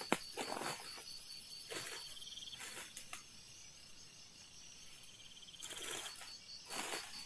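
Insects chirping in the dark forest: a steady, evenly pulsing high trill. Several soft rustles or scrapes break in over it.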